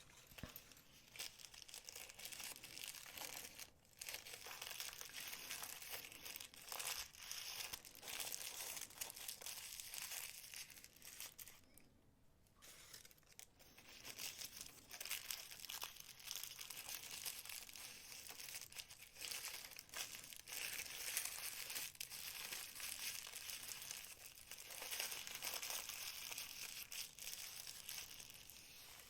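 Packaging crinkling and rustling as it is handled and opened, with intermittent crackles and brief pauses.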